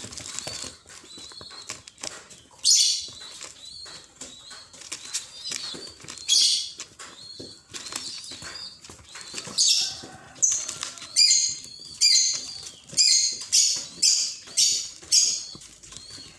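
Hand-reared nestling bird, about eleven days old, making short high-pitched cheeps: spaced out at first, then a quick run of about two a second in the second half.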